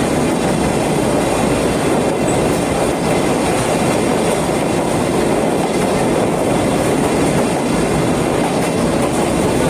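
Sagano Romantic Train running along the rails, heard from aboard with the windows open: a steady rumble of wheels on track with some clatter and a little wheel squeal.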